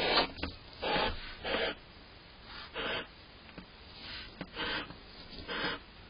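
Barn owls giving short, rasping hiss calls, about six in a row, roughly one a second.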